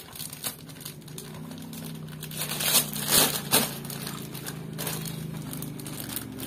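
Clear plastic packaging bag crinkling as a plastic toy is pulled out of it, loudest in a few sharp rustles around the middle, over a steady low hum.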